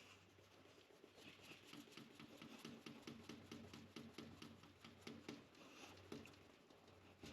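Faint rubbing of a cloth towel on a Swiss Army Knife's plastic scale: quick, repeated back-and-forth polishing strokes, working in swirl-remover polish to take out swirl marks.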